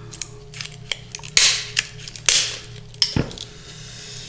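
Plastic film crackling and crinkling as it is handled and pulled away from a freshly cast resin lampshade, in a series of sharp snaps and a couple of longer rustles.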